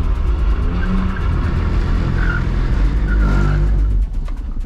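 BMW E46 320i's M54B22 2.2-litre straight-six revving under load as the car slides through a drift on wet tarmac, the engine note rising and falling, with a few short tyre squeaks.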